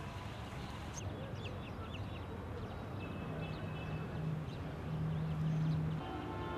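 Outdoor ambience: a steady background noise with a few short high chirps about a second in, then a low steady hum from about halfway through.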